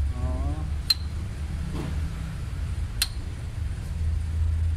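Two sharp metal clinks about two seconds apart, made by metal parts being handled at a car engine's timing-belt end, over a steady low hum.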